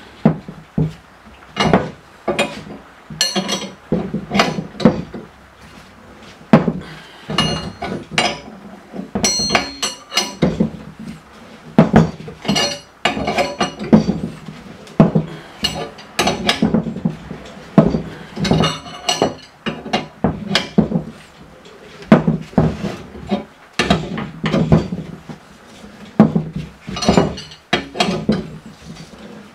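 A big wrench repeatedly clinking against the screw and hex of a C-frame bushing press as it is cranked round in short strokes, drawing a bushing into a lower control arm. The clinks come irregularly, several a second in bursts, with a bright metallic ring.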